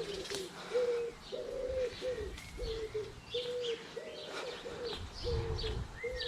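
Pigeons or doves cooing in a steady run of short low notes, about two a second, with small birds chirping higher up.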